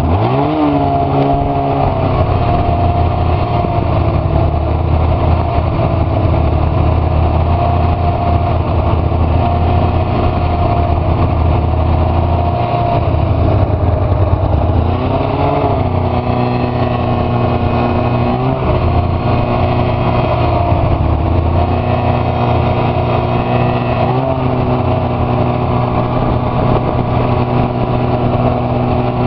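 2009 Arctic Cat F6 Sno Pro snowmobile's two-stroke engine running steadily under way. The revs rise near the start, then briefly rise and settle a few more times about halfway through and later on.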